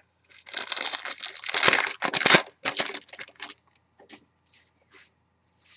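A trading-card pack's wrapper being torn open and crumpled, a dense crinkling for about three seconds, followed by a few faint light handling ticks.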